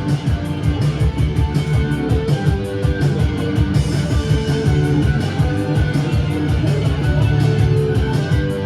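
Live rock band playing an instrumental passage: electric guitars and bass over a drum kit with a steady, fast beat, no vocals.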